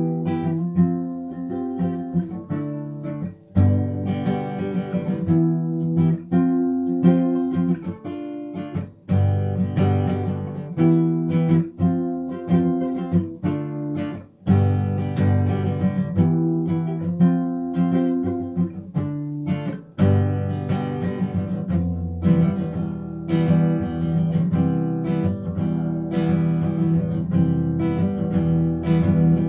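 Acoustic guitar music, chords plucked and strummed at a steady pace in repeating phrases with brief breaks between them.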